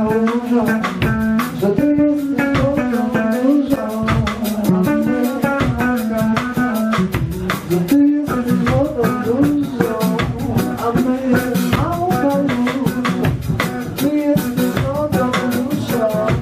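Live band music: a guitar playing a busy melodic line over a drum kit, with no singing.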